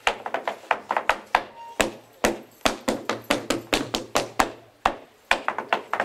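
Sharp knocks in an uneven rhythm, about four a second with short pauses twice: folk performers stamping on a wooden stage floor.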